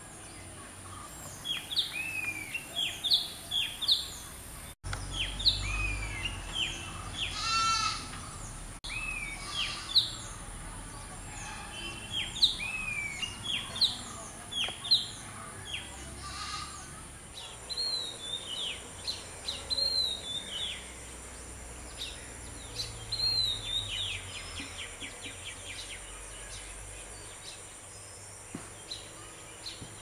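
Oriental magpie robin singing: short, varied, sweet whistled phrases of arching notes, repeated every second or so, with a quick rattle of notes twice. A steady high insect drone runs underneath.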